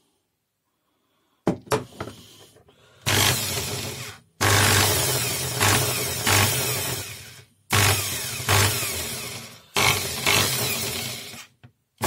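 Brushed motor of a Proton corded drill-driver running with its housing open. It is switched on in four short runs from about three seconds in, each cutting in sharply and dying away, with a few sharp knocks inside the runs. The armature's bearing is loose, its outer race turning in a broken seat, which is the cause of the tool's rattle.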